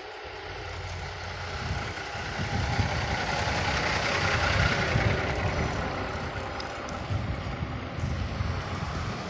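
A vehicle passing by: a rushing noise with a low rumble that swells to its loudest about halfway through and then fades.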